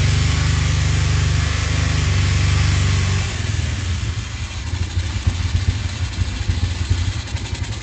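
Honda Tiger engine, an air-cooled single bored out to 250 cc and breathing through a Keihin PWK 33 carburettor, running at a steady raised speed, then dropping about three seconds in to a lower, uneven idle while a screw on the carburettor is turned with a screwdriver.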